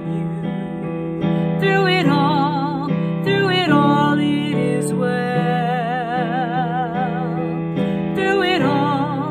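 A woman singing a slow worship melody in phrases, with a long held note with vibrato in the middle, over sustained electric keyboard chords.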